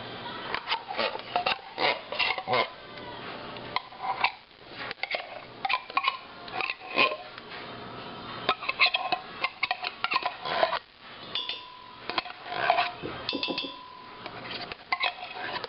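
A metal utensil scraping and clinking inside and against a tin can as thick condensed soup is scraped out into a crock pot, with irregular clicks and knocks and two short squeaks near the end.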